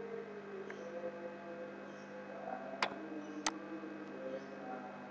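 Computer mouse clicking: a faint click near the start, then two sharp clicks about three seconds in, over a steady low electrical hum.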